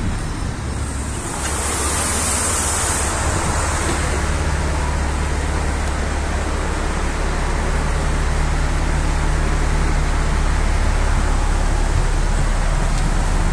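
NefAZ-5299 city bus running, its engine hum and road noise steady, heard from inside the bus. A short burst of air hiss comes about two seconds in.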